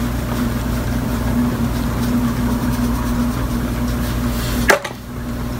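A steady low hum with a constant tone, with one sharp click near the end.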